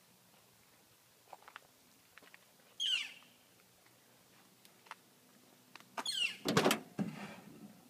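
A bird gives two short chirps that slide down in pitch, about three seconds apart. Near the end, a 1987 Chevrolet El Camino's door latch clicks and the door knocks as it is opened. This door sound is the loudest thing heard.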